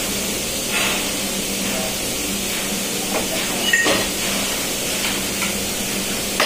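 Steady machinery and ventilation noise of an engine room: an even hiss with a low hum underneath. A few light metallic knocks from hand work on the valve come about a second in and near four seconds.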